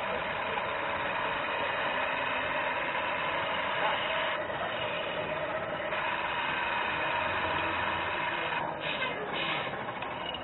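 Radio-controlled model truck driving, a steady mechanical whirr of its electric motor and gearbox, with a few short breaks near the end.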